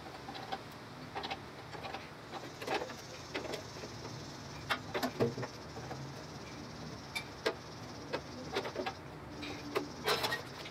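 Irregular light metallic clinks and knocks of hand tools and loose parts being handled during a golf cart tear-down, over a steady low hum. They come singly and in short clusters, with the loudest about halfway through and just before the end.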